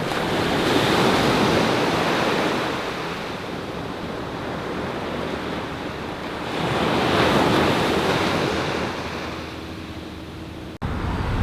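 Ocean waves breaking and washing in, the noise swelling twice about six seconds apart, then cutting off abruptly near the end.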